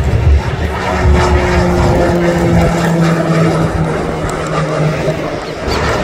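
Embraer A-29 Super Tucano's turboprop engine and propeller at high power during takeoff and a low pass: a loud, steady propeller drone with a low hum and a higher tone over rushing engine noise.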